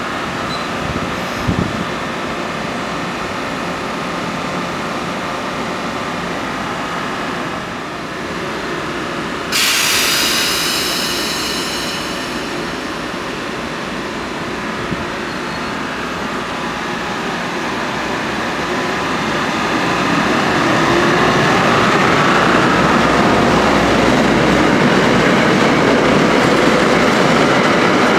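Electric multiple-unit commuter train approaching along the platform and then running past close by. Its steady rumble grows louder over the second half. About ten seconds in there is a sudden sharp hiss with high ringing tones that fades over a couple of seconds.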